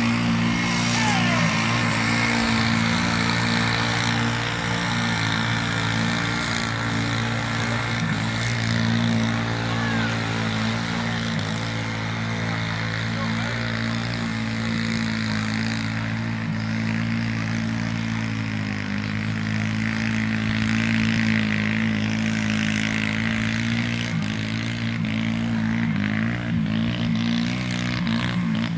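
ATV engine running hard at fairly steady high revs while it churns through a mud bog, its pitch dipping only slightly now and then.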